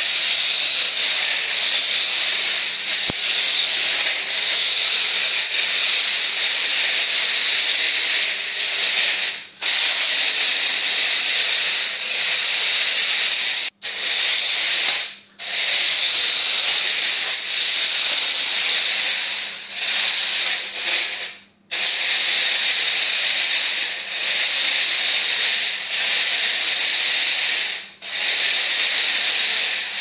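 Gesture-controlled 4WD twisting RC stunt car's electric motors and gearboxes whirring as it drives and spins on a hard floor: a steady high hiss-like whir that cuts out briefly a few times.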